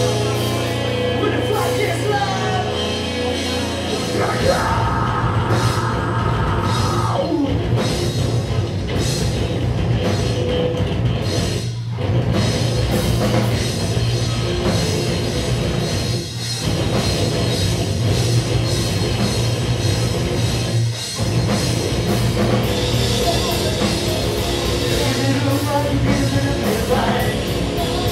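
A post-hardcore rock band playing live at full volume: distorted electric guitars, bass and drum kit, with a singer. The band drops out for a split second a few times.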